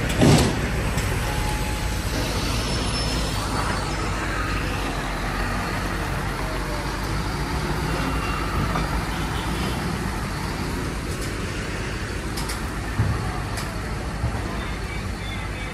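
Heavy prime-mover truck's diesel engine running steadily as it slowly tows a train car on a multi-axle low-loader trailer, a low rumble throughout. A loud thump comes just after the start, and two fainter knocks come near the end.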